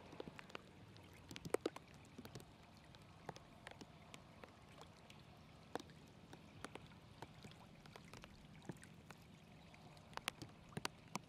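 Shallow muddy water trickling over grass and mud, a faint steady flow with scattered small splashes and drips, thicker in the first couple of seconds and again near the end.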